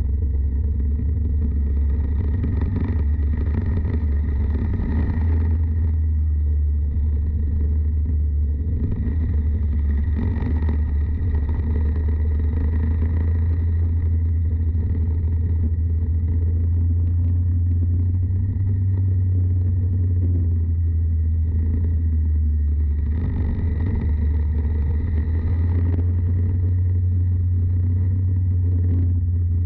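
Racing kart engines running with a steady low rumble, swelling three times as the sound rises and falls.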